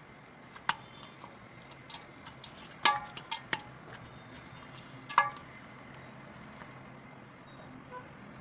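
About eight sharp clinks and knocks of objects being handled, scattered irregularly. The loudest two, about three and five seconds in, ring briefly. A faint steady hum runs underneath.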